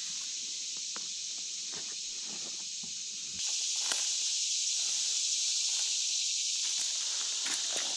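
Steady, high, hissing drone of an insect chorus in summer woods, with faint rustles and small clicks of handling. The drone steps up louder about three and a half seconds in.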